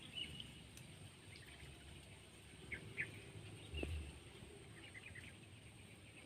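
Faint, scattered bird chirps, short and high, with a soft low thump about four seconds in.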